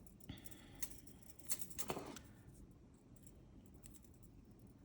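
Thin craft wire being bent and handled by hand: a few faint clicks and scrapes, the loudest about one and a half to two seconds in.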